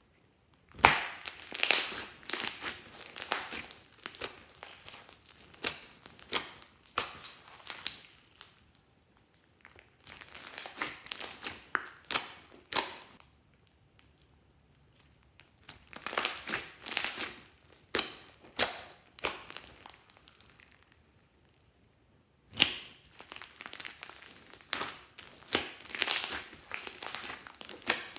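Hands squeezing, kneading and stretching thick slime studded with small beads, giving rapid sticky clicks and small pops as air pockets burst. The sound comes in four long runs separated by brief pauses.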